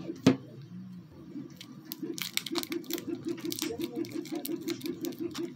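Clear plastic tape wrapped around a battery pack crinkling and crackling as fingers press and tuck wires under it, with one sharp click about a third of a second in. A low pulse repeats about seven times a second under it from about two seconds in.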